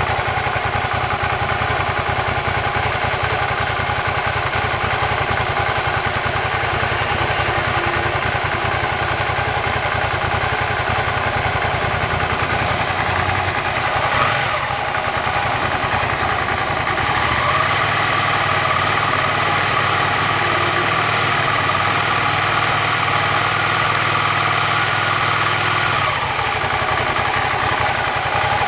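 Suzuki SV650 V-twin motorcycle engine idling from a cold start. It runs steadily, with a short blip about halfway through, then holds a slightly higher, louder idle for several seconds before settling back.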